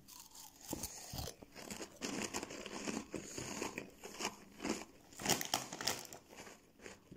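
Plastic snack bag crinkling as it is handled in the hand, with irregular crackles throughout.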